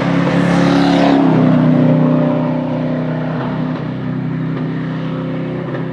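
Competition car at high revs passing close by, loudest about a second or two in, then its engine fading as it drives away.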